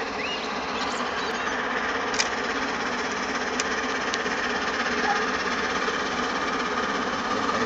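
LNER Peppercorn A1 Pacific No. 60163 Tornado, a three-cylinder steam locomotive, approaching at speed. Its rapid exhaust beats grow slowly louder as it nears.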